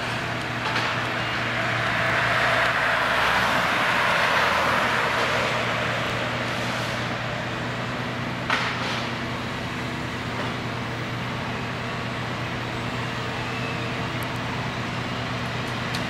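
John Deere 1470E harvester's diesel engine running steadily under hydraulic load as the crane works, swelling louder for a few seconds about two seconds in. One sharp click about eight and a half seconds in.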